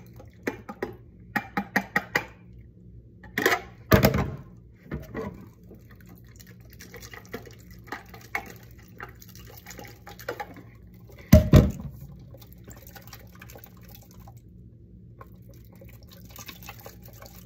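Water shaken out of a small plastic container full of beads, dribbling and splashing into a cup held under it, with a quick run of rattling taps early on and a few louder knocks, the loudest a little past the middle, as the container is jerked against the cup.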